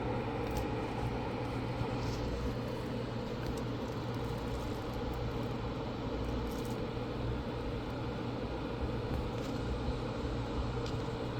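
Steady machine hum and hiss, like a fan running, with a few faint ticks.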